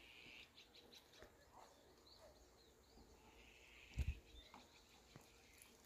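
Near silence: faint outdoor ambience with a few faint high chirps, and a soft low thump about four seconds in.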